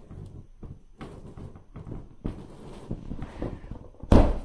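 Inflatable vinyl Puffy Paws wolf toy squeaking and creaking under paws squeezing and rubbing its skin, with irregular soft knocks. One much louder, brief noise comes near the end.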